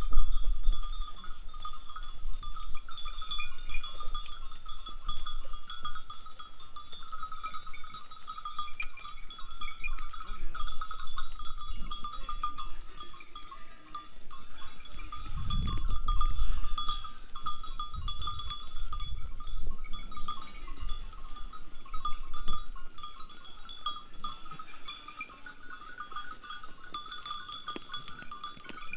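Bells on a herd of grazing sheep and goats clinking and ringing without pause, many small tinkles over a couple of steady bell tones. A low rumble comes and goes about halfway through.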